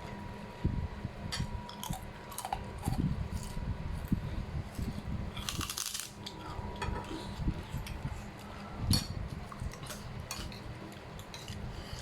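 Cutlery clinking and scraping against a plate while eating: scattered short clicks and taps, with a brief rattle about halfway through.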